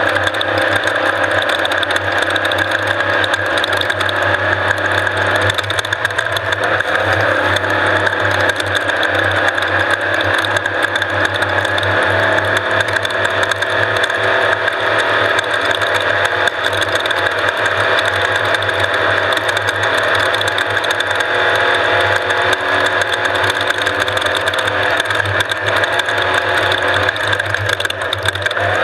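Off-road race vehicle running steadily, its engine drone buried under a constant dense mechanical rattle and clatter.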